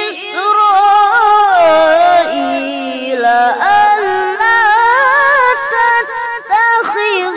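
A boy reciting the Quran in melodic tilawah style into a microphone. His high voice holds long notes that waver and slide in ornamented runs.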